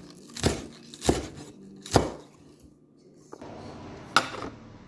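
Kitchen knife chopping green onions and garlic on a cutting board: three sharp chops in the first two seconds. Then a faint steady hiss begins and a single sharp knock comes near the end.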